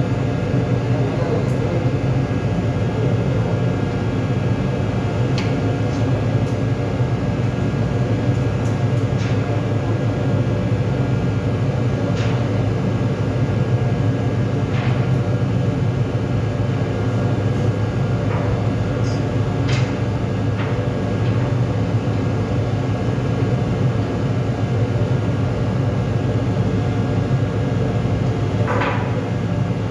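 Steady low drone of a ship's onboard machinery, several steady hum tones layered together without change. A few faint clicks now and then.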